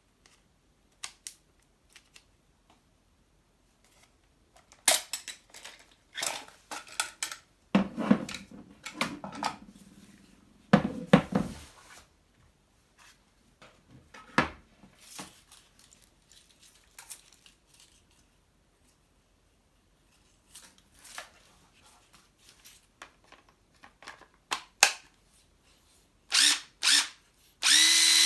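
Clicks and clatter of cordless power tools being handled, with a few short noisy bursts. Near the end a cordless drill's motor whirs in short trigger pulls, three in a row, each spinning up quickly, as the drill is checked for whether it runs.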